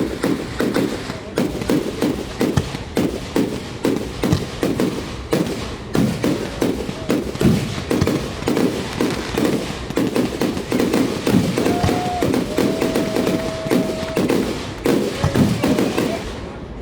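Fireworks going off in a rapid, continuous barrage of bangs, several a second.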